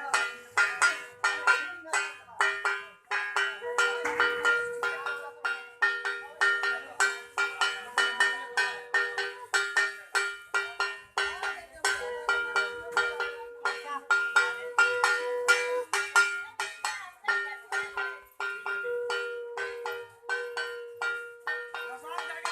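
Hand bells rung rapidly and continuously in a Hindu puja, with a conch shell blown in several long held notes over them.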